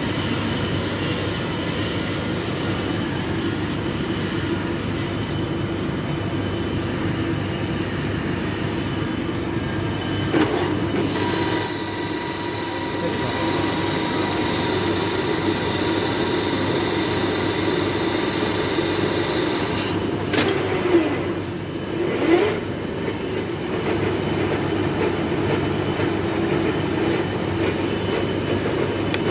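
Metal lathe running, turning a heavy iron workpiece: a steady machine drone, joined by a high whine from about 11 to 20 seconds in, with a few sharp knocks near the middle and later on.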